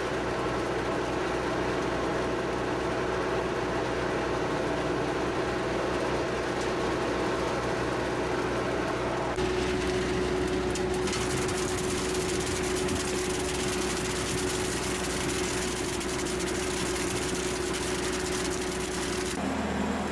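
Skid steer engine running steadily with a constant hum; the sound changes abruptly about nine seconds in, then carries on steady.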